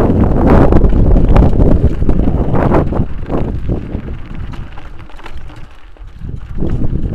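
Wind buffeting the microphone of a camera on a mountain bike riding a rough dirt trail, with rattles and knocks from the bike over the bumps. It eases off past the middle and picks up again near the end.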